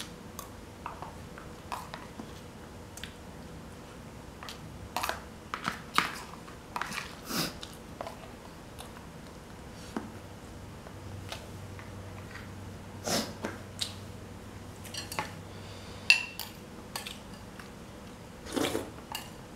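Eating sounds: food taken by hand from plastic and glass bowls, with irregular clinks and taps of dishes and a spoon and some chewing. A sharp clink about 16 seconds in is the loudest.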